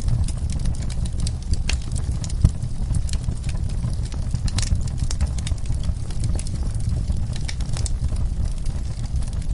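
Wood fire in a fireplace crackling, with many irregular sharp pops and snaps over a steady low rumble; one louder pop about two and a half seconds in.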